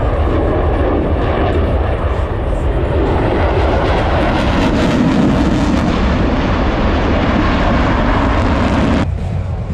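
Loud, steady jet noise of an F/A-18F Super Hornet's twin turbofans during a display pass, swelling a little through the middle. It cuts off abruptly near the end, leaving a quieter sound.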